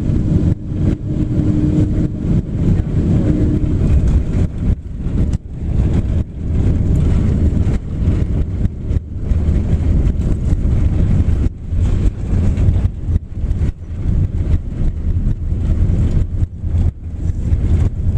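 Boeing 767-400 cabin noise during landing: a loud, continuous low rumble with frequent short jolts and knocks. A steady hum fades out about four seconds in.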